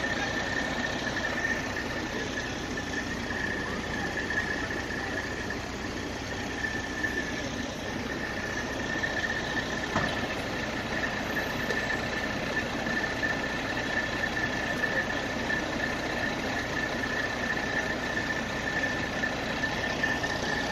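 Fire apparatus engine running steadily, with a constant high-pitched whine over it.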